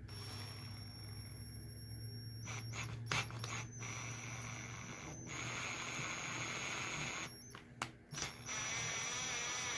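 Cordless drill with a 7/32-inch twist bit drilling out the screw holes of a plastic 40 mm fan frame. The motor whines steadily, breaks off briefly a few times, pauses about three-quarters of the way in, then runs again. It is run slowly so the bit doesn't catch in the plastic.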